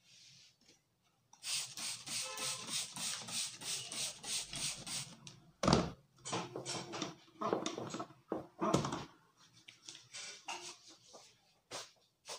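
A barber's hands patting and rubbing a man's face in a massage: a quick even run of pats, about five or six a second, then slower, irregular slaps and rubbing strokes.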